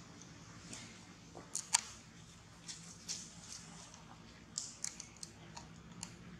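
Faint, scattered short clicks and rustles over a low steady hum, the sharpest about two seconds in and a cluster near the end.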